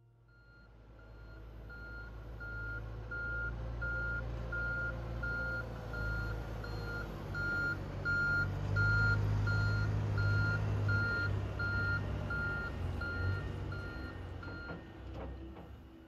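Reversing alarm on snow-clearing machinery beeping steadily, over the low running of a diesel engine that swells mid-way; the beeping stops near the end.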